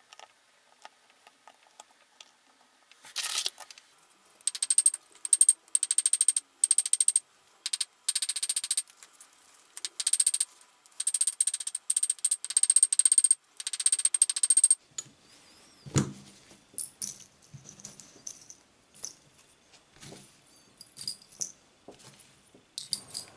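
Small hammer tapping a steel gauntlet finger plate against the horn of an anvil, in quick runs of blows that ring metallically, from a few seconds in until about two thirds through. After that comes a single knock and sparse light clicks of metal parts being handled.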